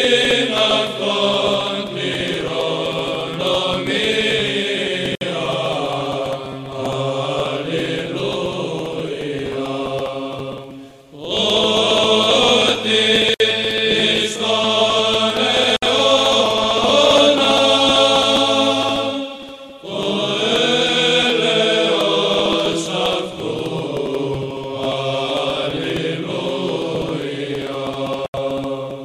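Orthodox church chant: low voices singing a slow, sustained melody over a steady held drone. The phrases break off briefly about eleven seconds in and again just before twenty seconds.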